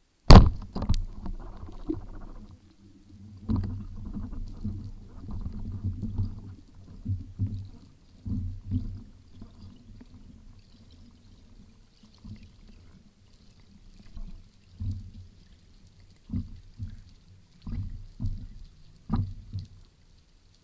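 Underwater sound: one sharp knock near the start, then irregular low rumbling and gurgling of air bubbles, which come in short clusters again near the end.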